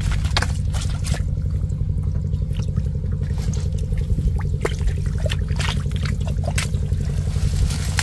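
Water splashing and trickling in short irregular strokes over a steady low engine drone.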